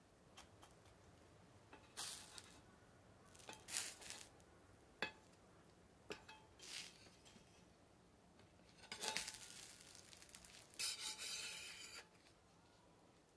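Metal spatula scraping on an iron griddle in several short strokes with a sharp tap, the longest scrape lasting about a second near the end, as it is worked under a cooked batter pancake to free it.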